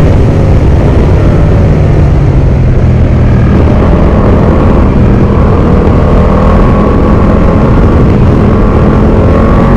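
Ducati V4 Pikes Peak motorcycle engine running under way at a steady road speed, its pitch shifting only a little, with wind rushing over the rider's microphone.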